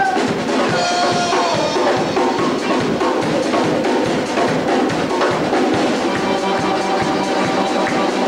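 Live rock band playing: electric guitar, saxophone and drum kit together, with a short sax note bending down about a second in.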